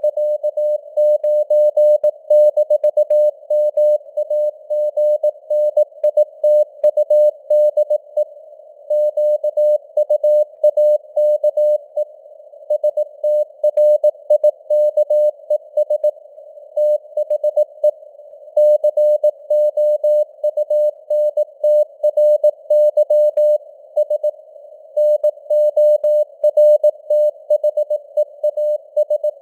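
Morse code (CW) news text sent at 18 words per minute as a single-pitched beep keyed on and off in dots and dashes, with short gaps between words. It sits over a narrow band of simulated radio receiver hiss.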